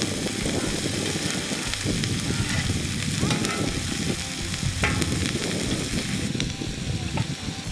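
Sliced onions and diced green capsicum sizzling in oil on a large flat griddle, stirred and turned with a perforated ladle, with a few scrapes of the ladle against the griddle.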